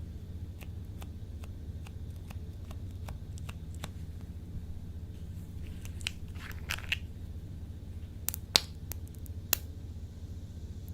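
Slime being squeezed and stretched by hand, giving small sticky clicks and air-bubble pops, a louder crackling run about six seconds in and a few sharp snaps near the end, over a steady low hum.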